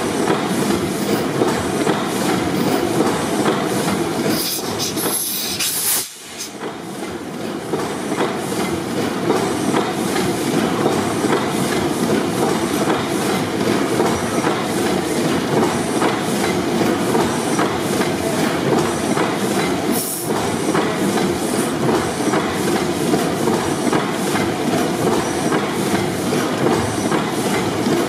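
600 HP Snow four-stroke gas pipeline compressor engine running, a steady loud mechanical clatter. About four seconds in, a sharp hiss of cylinder gas lasts for a second or two and cuts off suddenly, as the indicator cock is blown clean. A shorter hiss comes near the end of the second third.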